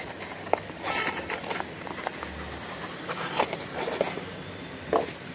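Cardboard packaging rustling and scraping as a boxed 3-inch full-range speaker is handled and lifted out by hand, with scattered light taps and clicks.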